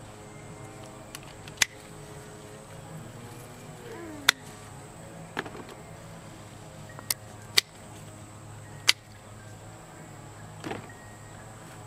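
Pruning shears snipping bell pepper stems: about seven sharp clicks at uneven intervals, two of them close together a little past the middle.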